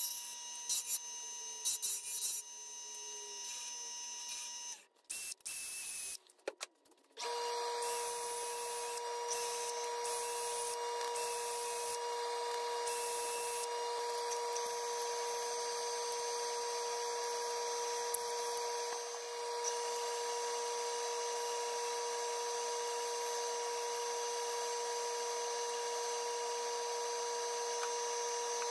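Wood lathe running with a steady motor hum. In the first few seconds a gouge cuts the spinning wood in irregular scrapes. After a brief break the lathe runs on at a different pitch, with a steady hum and hiss.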